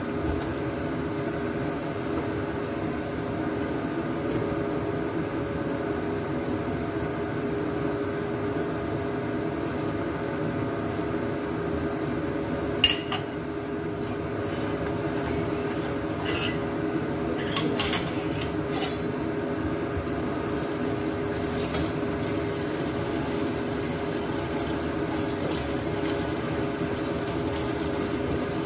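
Lidded pots steaming on a gas stove, with a steady sound of liquid boiling under the lids. A sharp metal clink comes about 13 seconds in, and several lighter clinks of utensils and dishes follow between about 16 and 19 seconds.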